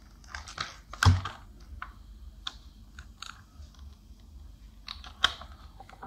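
Stiff plastic blister packaging of a doorbell kit crackling and clicking in the hands as it is handled and turned over, with a louder knock about a second in and a sharp click near the end.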